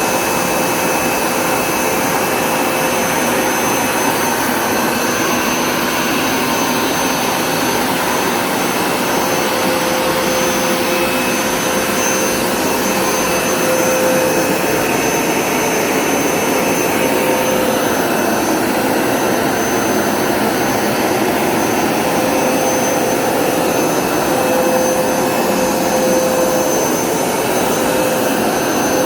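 Hoover Smartwash Pet Complete carpet cleaner running, its suction motor giving a steady whine over rushing air.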